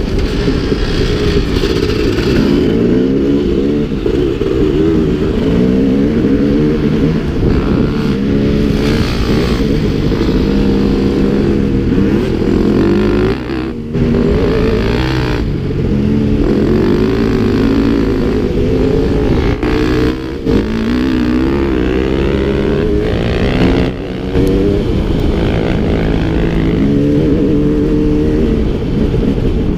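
Dirt bike engine under way on a trail, its note rising and falling over and over as the throttle is worked and gears change. The sound drops out briefly a few times, where the throttle is shut off.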